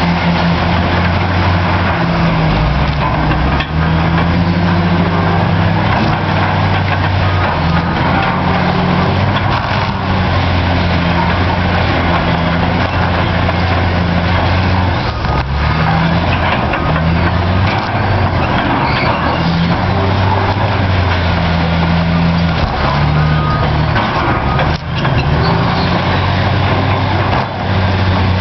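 Caterpillar D9T bulldozer's C18 diesel engine running loud under working load, its pitch stepping up and down every second or two, over a steady harsh noise.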